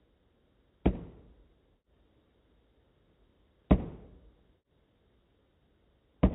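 A wooden drumstick striking a drum practice pad three times, single strokes a little under three seconds apart. Each is a sharp tap with one clean rebound and no second bounce, dying away within about half a second.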